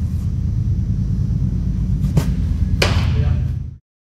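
A baseball pitch: two sharp smacks about two-thirds of a second apart, the second louder with a short ring, over a steady low rumble of a large indoor hall. The sound cuts off abruptly near the end.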